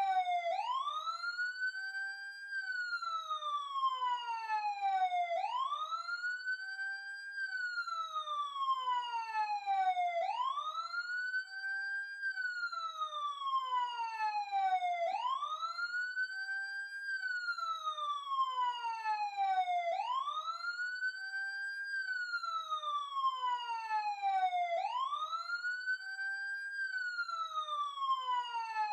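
Police siren on a wail cycle: a rising tone that climbs over about two seconds, holds briefly, then slides steadily down, repeating about every five seconds.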